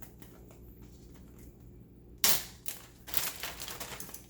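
A sharp snap or knock about two seconds in, then about a second of light clattering and rustling as spice containers are handled at the counter.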